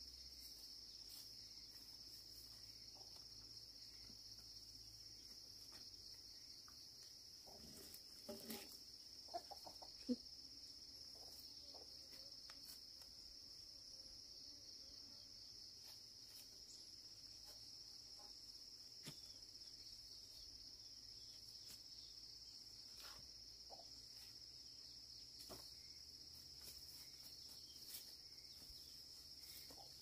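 Insects chirping in a steady, high, unbroken chorus. A few short calls and soft clicks come about eight to ten seconds in.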